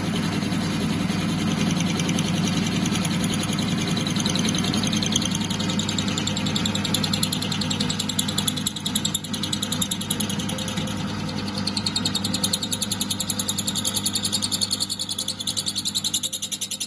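Myford lathe running under power with a milling cutter in the chuck cutting a metal hitch bracket on the mini mill attachment. A steady motor and gear hum carries through, with a rapid, regular high-pitched chirping chatter from the cutter in the metal that grows stronger from about halfway.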